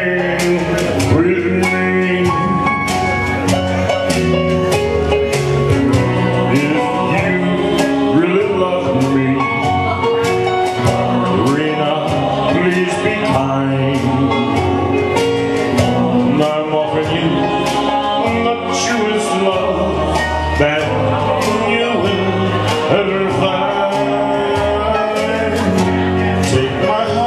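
Karaoke: a man singing into a microphone over a music backing track, continuously and without a break.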